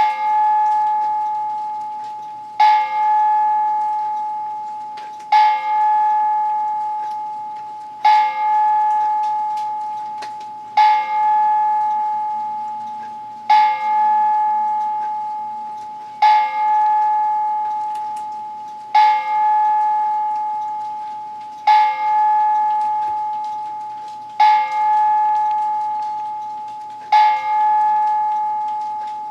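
Church-style cuckoo clock striking on a single bell: eleven evenly spaced strikes, one about every two and three-quarter seconds, each ringing out one clear tone and slowly fading before the next.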